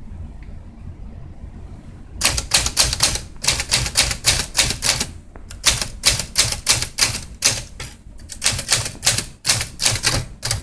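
1957 Smith Corona Silent Super manual portable typewriter being typed on: after about two seconds of quiet, a quick run of key strikes begins, several a second, the typebars clacking against the platen, with a couple of short pauses.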